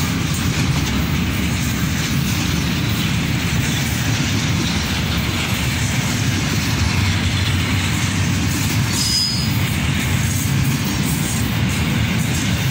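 Double-stack intermodal container cars of a freight train rolling past: a steady, loud rumble of steel wheels on rail. There is a brief high note about nine seconds in.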